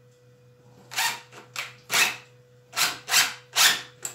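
Craftsman 20-volt impact driver driving a screw into wood in a series of short, loud bursts, about seven or eight, starting about a second in.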